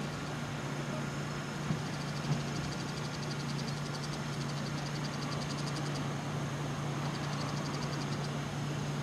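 Ex-Hankyu 5100-series electric train pulling slowly out of the station, a steady low hum with a couple of light clicks early on. A high, rhythmic trilling pulses in the background for several seconds.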